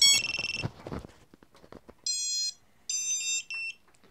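Racing quadcopter's brushless motors beeping out the ESC startup tones as a 4S LiPo battery is plugged in: a quick run of tones at different pitches at the start, then separate beeps about two and three seconds in, signalling that the ESCs have powered up. Clatter of the battery lead being handled in the first second.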